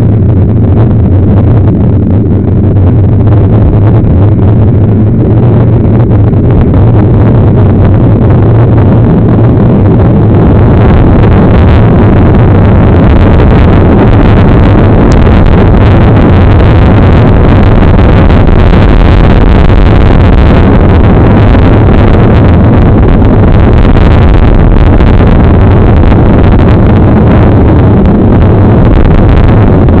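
Loud, steady rumble of wind and road vibration on the microphone of a camera riding on a mountain bike over a gravel dirt road, overloading the recording. It turns harsher and hissier about ten seconds in.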